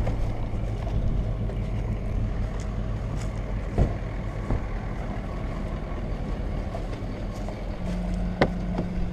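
Pickup truck engines running steadily, with a knock about four seconds in and a sharp click near the end.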